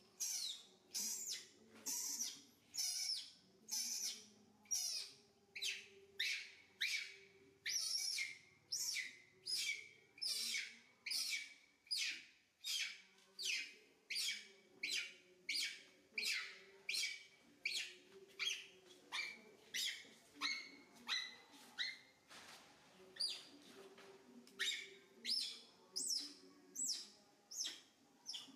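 Young macaque squealing over and over, short high calls that sweep downward, about two a second, while it is held and its limbs are massaged.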